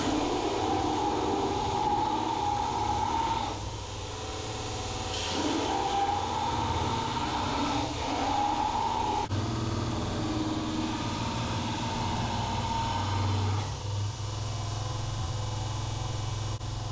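Belt sander grinding a steel rebar knife blade: a steady motor hum with a higher grinding tone that wavers and breaks off briefly between several passes.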